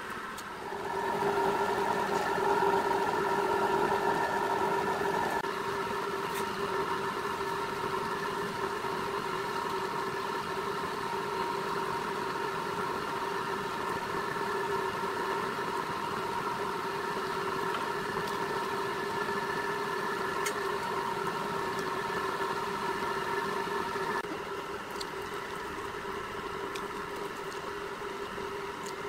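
Motor-driven roller bender running, its gear-driven rollers turning as a steel strip is rolled into a ring. It makes a steady mechanical whine with several held tones. The whine rises about a second in and drops in level about 24 seconds in.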